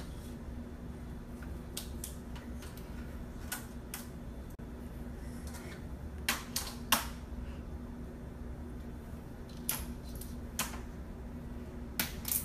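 Fridge magnets clicking as they are snapped onto and pulled off a refrigerator door: scattered sharp clicks, a few louder ones, over a low steady hum.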